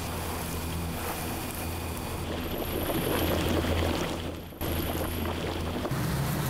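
Commercial kitchen noise of large pots of broth and noodle water boiling hard on gas burners: a steady low rumble with hissing. It drops out briefly about four and a half seconds in.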